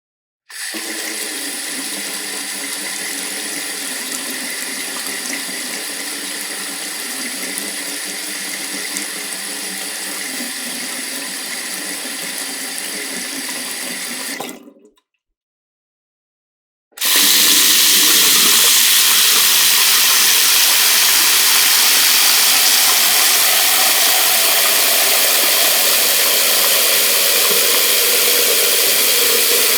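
Sink faucet running water into a sink: a moderate steady flow that stops about halfway through, then after a short gap a stronger, louder, more hissing flow.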